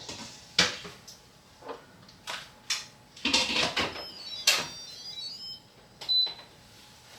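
Instant Pot electric pressure cooker being loaded and set: a series of knocks and clunks with a brief scrape as the metal inner pot goes in and the cooker is handled, then a short falling run of electronic chime notes and, about six seconds in, a single high beep as the bean program is selected.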